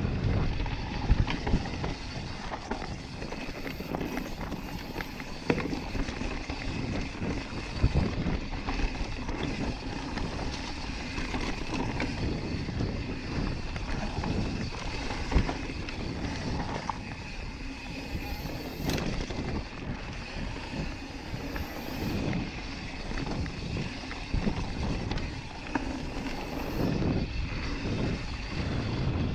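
Yeti SB5 full-suspension mountain bike rolling fast down a dirt singletrack: knobby Maxxis tyres running over the dirt with a steady rushing noise, and frequent short knocks and rattles as the bike goes over bumps.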